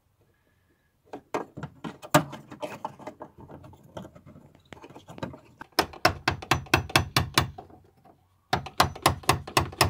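Plastic locking ring of a Skoda Octavia Mk3 in-tank fuel pump clicking against the tank flange as it is fitted and turned down, tight and going slowly. Irregular knocks and clicks at first, then two runs of even, rapid clicks at about six a second with a short pause between.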